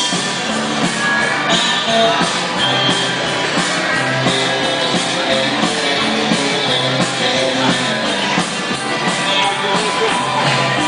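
Up-tempo dance music with a steady beat, playing for line dancers.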